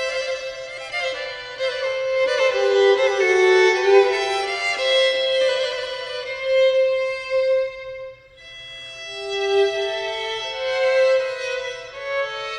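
Two violins playing a classical duet, bowed melodic lines moving over each other. The playing drops off briefly about eight seconds in, then swells again.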